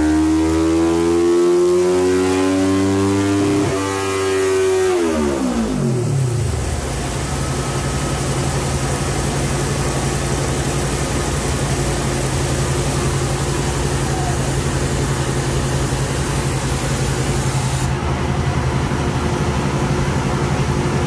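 Kawasaki Ninja 400 parallel-twin engine on a chassis dyno, its revs rising through a run. About four seconds in the revs fall away over a couple of seconds, and the engine settles to a steady idle.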